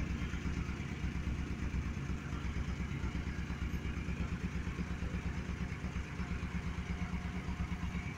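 1965 Dodge D200 pickup's engine idling steadily, with an even, rapid pulse.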